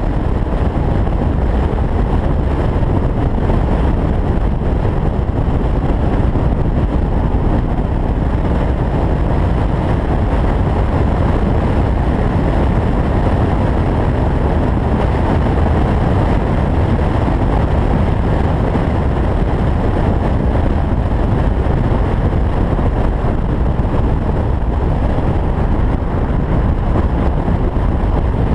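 Steady wind and road noise of an open-top convertible cruising at highway speed, a constant low rush of wind on the microphone, tyres and engine with no change in pace.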